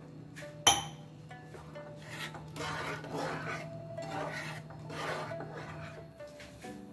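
A spatula stirring and scraping thick lentil dal around a nonstick frying pan: a knock about a second in, then a series of rasping strokes.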